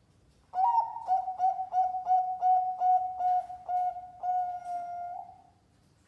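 Zebra dove (perkutut), a national-champion bird, singing one full cooing phrase: an opening note, then a quick run of about a dozen short, even coos at about three a second, ending in a longer held coo that fades. The song is used as a lure to set other perkututs singing.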